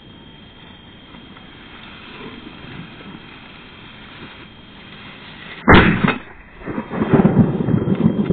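A single shotgun shot at a flushed quail, sharp and very loud, a little past halfway through. Loud, rough rumbling noise on the microphone follows.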